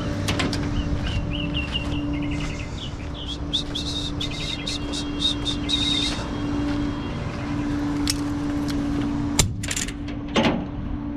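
Flatbed tow truck's engine idling with a steady hum, while small birds chirp in quick trills for several seconds. A few sharp clicks near the end.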